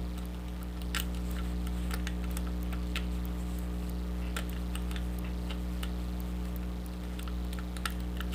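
Irregular small metallic clicks of a short hook pick working the pin stacks of a pin-tumbler lock held under tension by a tension wrench, single-pin picking. A steady low electrical hum runs underneath.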